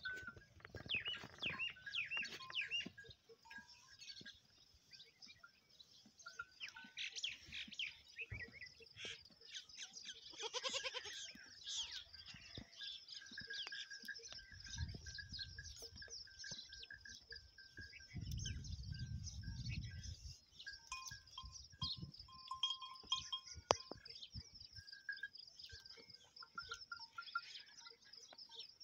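Goats and sheep milling in a pen, with a goat bleating now and then, most clearly about ten seconds in. Small high chirps run throughout, and a low rumble comes twice in the second half.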